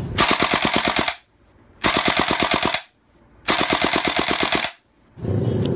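AK-pattern rifle firing on full auto: three bursts of about a second each, around ten shots a second, with short silent gaps between them.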